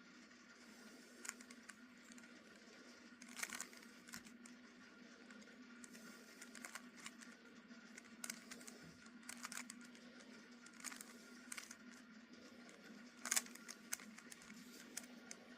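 Rubik's Cube being turned by hand: faint plastic clicks and rattles of the layers turning, scattered every second or two, the loudest about three and a half seconds in and near the end, over a faint steady hum.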